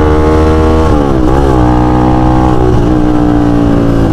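Motorstar Z200 sport bike's engine running hard under way, with wind on the microphone. About a second in the revs dip and pick up again as it shifts gear, then hold steady at a lower pitch.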